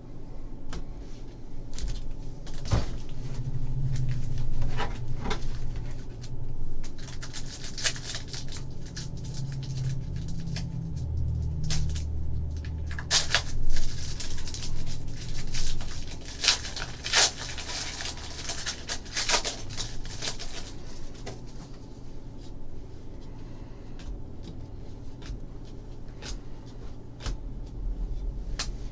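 Trading-card foil packs and cards being handled: irregular crinkling rustles and sharp clicks, busiest around the middle, over a low hum.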